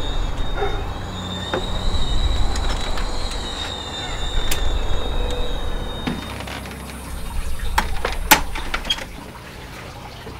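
A high-pitched screeching drone over a low rumble, in the manner of horror-film suspense sound design, fading out about six seconds in. Around eight seconds in come a few sharp clicks and one louder knock as a sliding glass door's handle and latch are worked.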